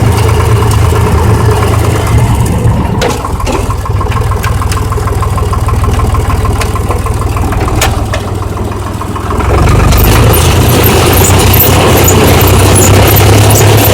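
Rivière-Casalis KR 40 tractor engine running steadily, then growing louder and fuller about ten seconds in.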